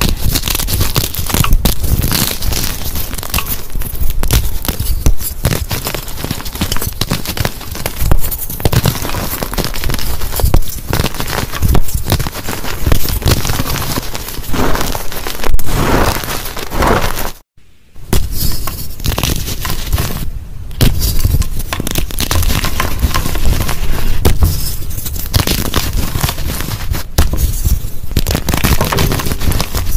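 Dyed gym chalk crunching and crackling as hands crush blocks and squeeze and dig through the loose crumbled pieces, a dense run of crisp crunches. There is a sudden silent break of under a second just past the middle.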